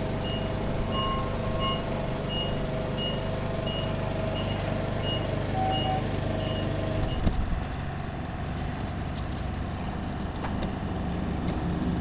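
Forklift engine running with its backup alarm beeping steadily, about one and a half beeps a second. The beeping stops about seven seconds in, and the engine keeps running at a lower, quieter level.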